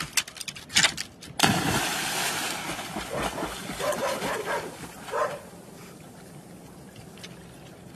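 A dog jumps off a wooden dock into the sea: a loud splash about a second and a half in, then a few seconds of water splashing and churning as it starts to swim, dying away after about five seconds.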